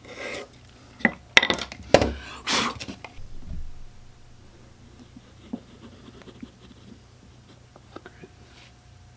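Pencil scratching short marks on a maple board, with several sharp knocks of wooden pieces set down on a workbench in the first three seconds, then only faint small taps as the wood is handled.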